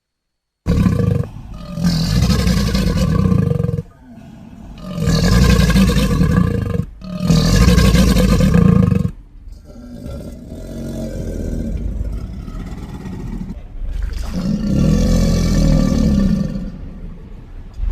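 Crocodilian roars and growls used as a creature sound effect: a series of long, rough, deep roars starting just under a second in, with a quieter rumbling growl in the middle.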